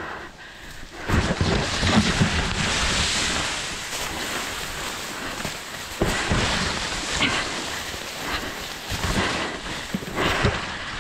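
Tall grass swishing and brushing close against the microphone while pushing through it, with irregular footfalls and thuds on the forest floor.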